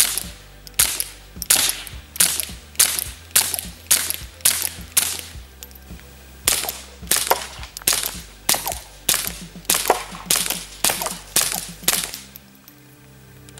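Suppressed Ruger Mark IV 22/45 Lite .22 LR semi-automatic pistol firing a rapid string of about twenty shots, roughly one every half second to second. There is a brief pause about five and a half seconds in, and the shots stop about a second before the end.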